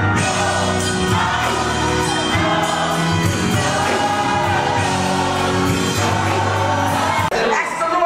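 Gospel choir singing with instrumental accompaniment and steady low bass notes; the accompaniment drops out near the end.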